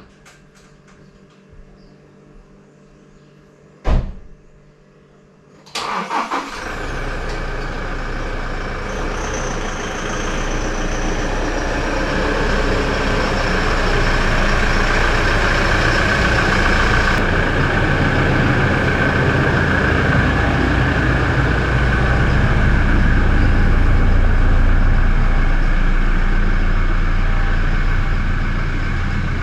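A single thump, then a vehicle engine starts about six seconds in and keeps running, growing a little louder.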